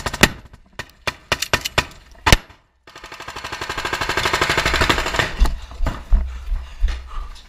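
Rifle gunfire: a string of sharp single shots, the loudest about two seconds in, then a long rapid automatic burst that grows louder, then more scattered shots over a low rumble.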